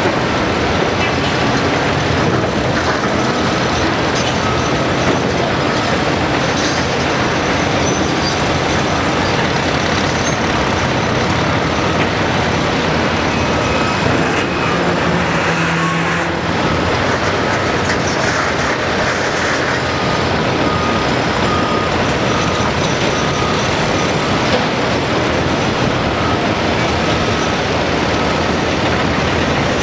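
Komatsu PC228 hydraulic excavator's diesel engine and hydraulics running steadily under load as it digs and moves rocks. A repeating warning beep joins in during the second half.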